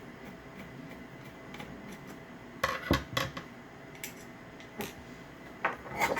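Sharp metallic clicks and clinks as a screw is taken out of an Onity hotel door lock and its metal parts are handled, opening the lock up to reach its batteries. A cluster of clinks comes about two and a half seconds in, with a few more near the end.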